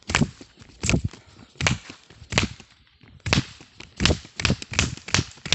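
Homemade toy magazine rifle firing: a string of about ten sharp cracks, unevenly spaced and coming faster in the second half.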